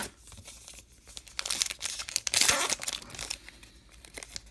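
Wrapper of a 2019 Topps Allen & Ginter baseball card pack crinkling and tearing as it is ripped open, loudest in the middle.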